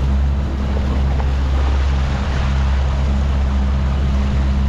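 Suzuki outboard motor running steadily with the boat under way, a constant low drone, over the rush of the wake and wind on the microphone.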